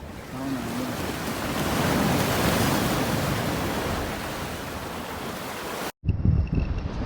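Sea surf rushing, swelling over a couple of seconds and slowly easing. It cuts off abruptly near the end, giving way to wind buffeting the microphone.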